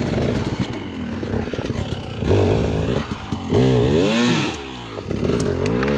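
Dirt bike engine running, then revved three times, its pitch climbing and dropping back with each throttle blip.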